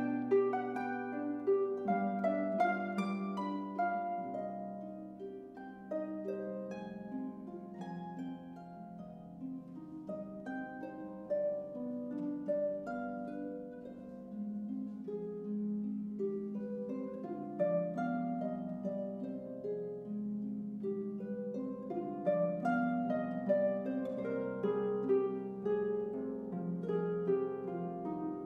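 Concert pedal harp played solo: a continuous flow of plucked notes ringing over one another, with lower bass notes sustaining underneath.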